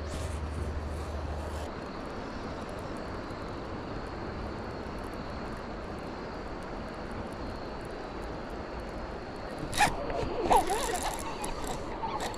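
Fishing reel being cranked steadily, a continuous rasping whir. About ten seconds in there is a sudden sharp hit, then a second or two of busier, wavering sound.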